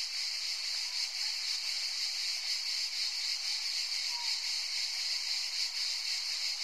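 A steady, high-pitched hiss with nothing in the low range, laid under the intro title card. It holds even throughout.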